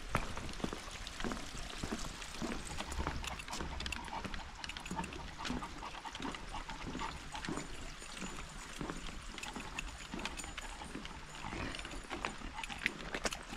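Footsteps on a wooden boardwalk: irregular knocks and clicks of a walker's steps and a dog's paws on the planks.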